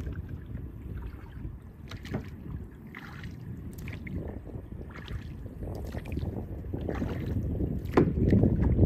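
Kayak paddling on the water: irregular paddle splashes and water sloshing, over a low rumble of wind on the microphone. It grows louder near the end.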